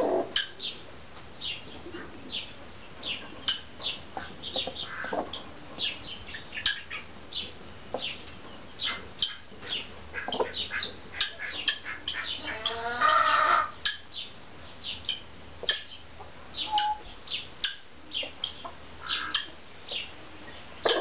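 Brahma chickens making short, high chirping calls over and over, with one longer, louder squawk about two-thirds of the way through.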